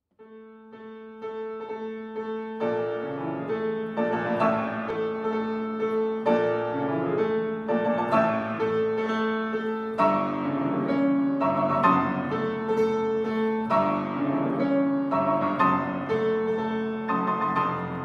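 Grand piano played solo, a classical piece. It opens softly and turns fuller and louder after about two and a half seconds, with one mid-range note and its octave struck again and again under changing chords.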